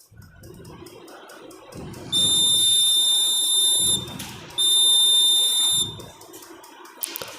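Buzzer of a BC547 transistor laser-tripwire alarm sounding a steady high-pitched tone twice, for about two seconds and then for just over a second, with a short break between. It sounds because the laser beam on the light-dependent resistor has been interrupted.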